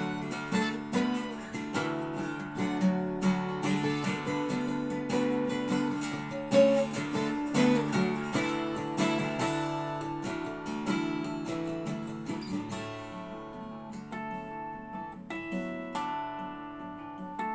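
Twelve-string acoustic guitar played with the fingers: a steady run of picked notes ringing into each other. The playing turns softer and less bright about three-quarters of the way through.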